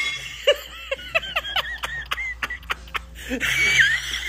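People laughing in quick bursts, then a long, high-pitched wavering laugh in the second half.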